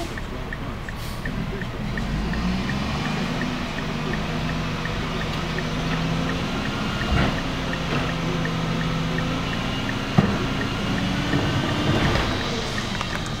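Leach rear-loader garbage truck running its hydraulics with the engine held at raised revs while the cart tipper lifts and dumps a trash cart into the hopper. Two sharp bangs, about 7 and 10 seconds in, as the cart knocks against the hopper.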